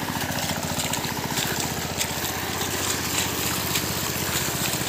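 A small engine running steadily, an even low putter with no change in speed.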